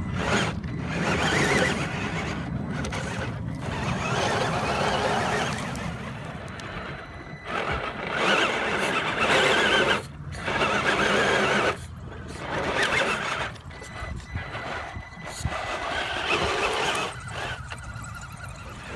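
Electric motor and gearbox of a Tamiya CC-01 radio-controlled crawler whining in uneven bursts of throttle as it climbs loose rocky ground, stopping and starting every second or two.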